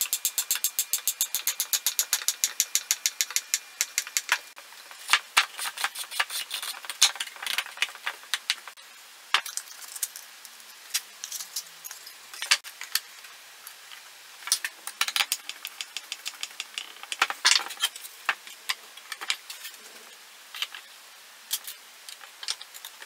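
A hand screwdriver driving stainless steel screws into the wooden caddy, making a rapid, even train of clicks, about ten a second, that stops about two seconds in. After that come scattered clicks and knocks as the wooden parts and loose screws are handled.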